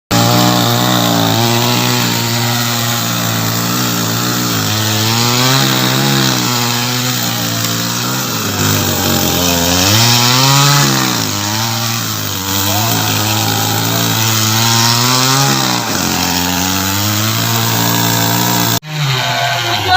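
Two-stroke chainsaw running and cutting wood of a large dead tree, its engine pitch dipping and rising again as the chain bites and frees up. The sound cuts off abruptly shortly before the end.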